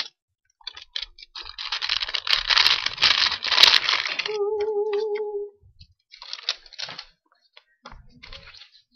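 A paper envelope being torn open and rustled, in bursts of tearing and crinkling. A short hummed note comes about halfway through.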